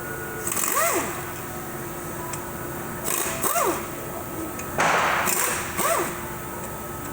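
A power driver spinning briefly three times, its pitch rising and then falling with a hiss each time, as it runs out the 15 mm bolts of a 4L60E transmission's tail housing extension.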